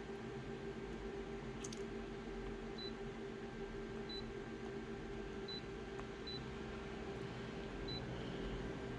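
Steady electrical hum with about six faint, short, high-pitched beeps at irregular intervals, and a sharp click near two seconds in and another near seven seconds.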